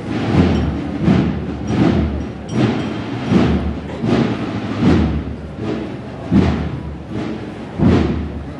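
A muffled procession drum beating a slow, even march, about one stroke every three-quarters of a second.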